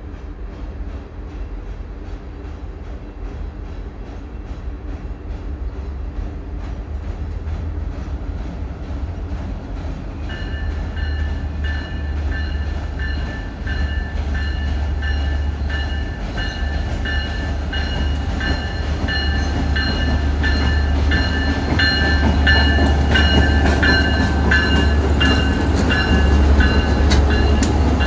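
Diesel-electric freight locomotives approaching and passing close by, their low engine rumble growing steadily louder. From about ten seconds in, a high pulsing ringing tone joins it. Sharp wheel clicks over the rails come more often near the end as the lead units go by.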